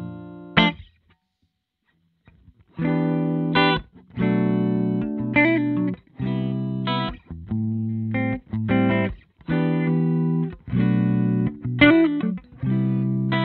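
Electric guitar, a Gibson Les Paul Standard through a 1973 Fender Bassman Ten Silverface valve amp and a Jensen C12K 12-inch speaker, with a lightly broken-up tone. A short chord stab comes first, then a pause of about two seconds, then a rhythmic run of chords played in short phrases with brief gaps between them.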